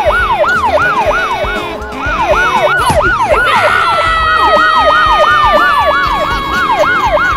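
Siren sound effect on a fast rising-and-falling yelp, about three sweeps a second. About halfway through, a second long held siren tone joins it and slowly sinks in pitch.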